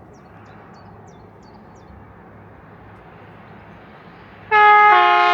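East Midlands Railway Class 222 Meridian approaching: a faint rumble that slowly grows, then about four and a half seconds in the train's horn blasts loudly, sounding two notes.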